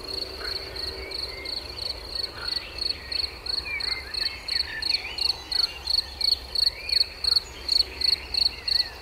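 A cricket chirping steadily in high, evenly spaced chirps, about two to three a second, growing louder over the first several seconds.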